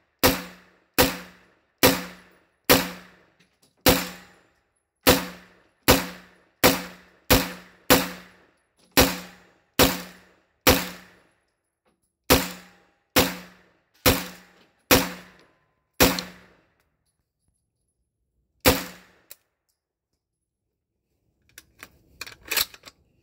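PTR 9CT, a 9mm roller-delayed MP5-clone pistol, fired semi-automatically: about twenty single shots at roughly one a second, each with a short echo, then a pause of a couple of seconds before one last shot. Near the end come a few light clicks of the gun being handled.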